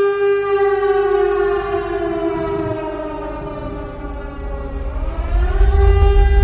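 Tornado warning siren: a steady horn-like tone, with a second pitch that slowly falls for about three seconds and then swings back up. A loud low rumble joins near the end.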